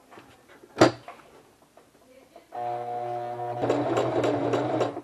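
A sharp click a little under a second in, then about halfway through an electric sewing machine starts running: a steady hum that turns into a fast stitching rattle for its last second and a half. It is sewing a trial run of a newly chosen stitch setting.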